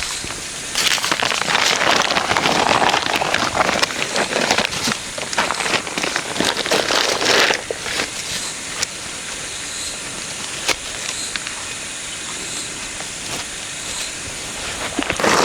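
Rustling, crackling noise with scattered clicks, louder over the first half and quieter after about halfway.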